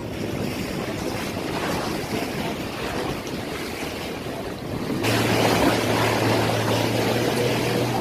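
Open-sea waves washing, with wind on the microphone. About five seconds in the sound gets louder and a steady low hum joins it.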